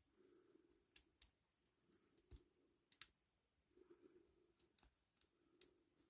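Faint, irregular metallic clicks of a lock pick working the pins inside an ASSA Ruko 2 padlock, about a dozen light ticks spread unevenly.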